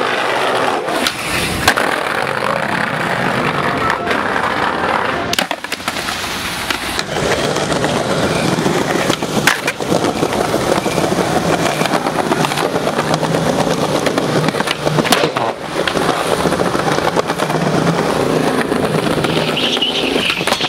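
Skateboard wheels rolling over stone paving, with sharp clacks of the board popping and landing scattered through, a dozen or so at uneven intervals.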